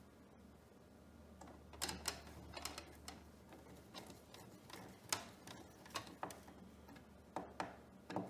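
Scattered light clicks and taps, irregular, starting about two seconds in: a plastic electrical outlet and its hardware being handled and test-fitted into a cabinet cutout.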